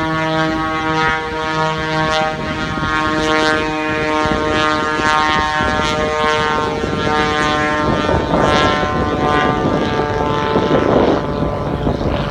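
Propeller-driven aerobatic biplane flying overhead, its piston engine running with a steady, buzzing note that drifts up and down in pitch as it manoeuvres. It gets louder and rougher about eight to eleven seconds in.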